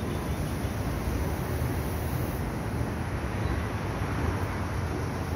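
Steady low rumble and hiss of railway station platform ambience, with no distinct events.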